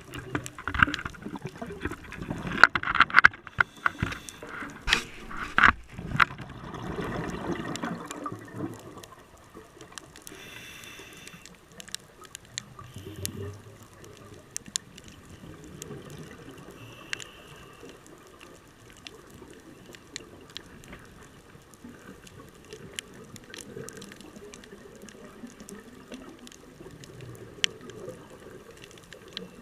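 Underwater ambience heard through a camera's waterproof housing: a muffled wash of water noise scattered with sharp clicks and crackles, louder and busier for the first eight seconds or so, then quieter.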